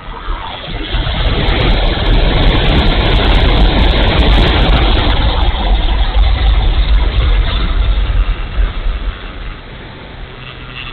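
Wind rushing and buffeting over a wing-mounted camera's microphone on a ParkZone F4F Wildcat RC plane in flight, with its electric motor and propeller running underneath. The rush builds over the first two seconds and drops off near the end.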